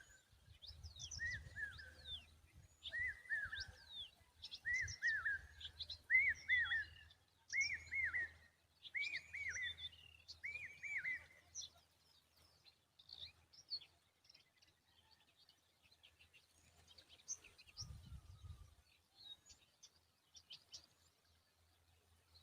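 Common babbler calling repeatedly, a short falling phrase about every second and a half with higher chirps over it, stopping about halfway and leaving scattered faint chirps. The calling is noise that the bird makes to protect its young.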